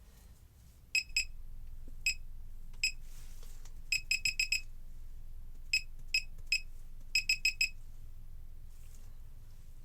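Laser projection keyboard's short electronic key-click beeps, one per keystroke, in irregular bursts of typing: about sixteen identical beeps, some single and some in quick runs of four.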